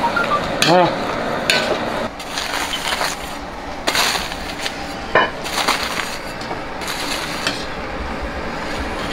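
A metal ladle stirring shrimp in a hot wok over a sizzle, knocking against the pan. About two seconds in this gives way to a metal spatula scraping and patting a layer of coarse salt spread over foil in a wok, with scattered sharp scrapes and taps.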